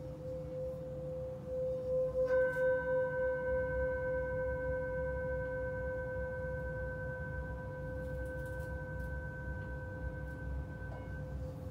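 Metal singing bowl ringing: a steady low hum is already sounding when the bowl is struck about two seconds in, adding higher ringing overtones that pulse at first and then sustain, the upper ones fading out near the end while the low hum carries on.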